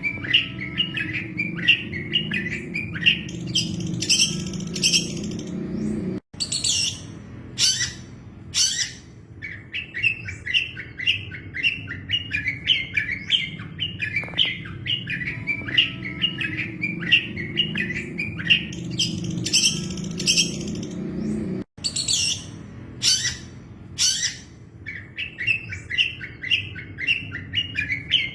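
Long-tailed shrike (cendet) song: fast chattering runs of chirps broken by a few harsh, screechy calls, with a steady low hum beneath. The same sequence repeats about every fifteen seconds, cutting out for an instant at each restart, as a looped training recording for songbirds.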